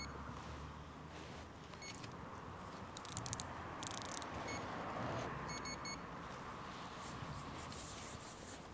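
Steady wind noise with a few short high electronic beeps, about two and five and a half seconds in, and two quick clusters of clicks about three to four seconds in.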